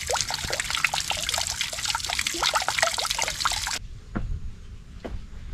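Spring water running from a metal tap and splashing into a mossy stone pool: a steady trickle with many small splashes. It cuts off suddenly about four seconds in, leaving a much quieter background with a few faint knocks.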